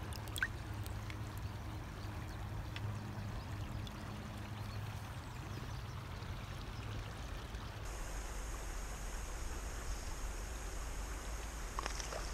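River water flowing steadily, with a faint click just after the start.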